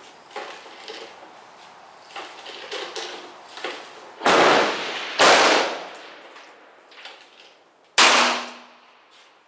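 Three loud shots from a .44 Special revolver, the first two about a second apart and the third about three seconds later, each ringing out briefly. Fainter pops sound between them.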